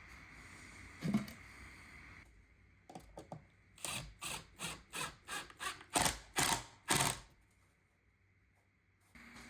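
A run of about ten quick rubbing strokes, roughly three a second, from about four to seven seconds in, after a single light knock about a second in.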